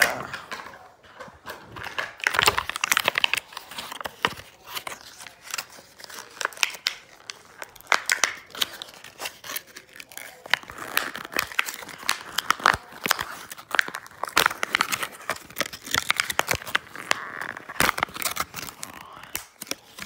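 Toy packaging being handled and torn open: irregular crinkling and tearing crackles that come and go, with hands brushing close to the microphone.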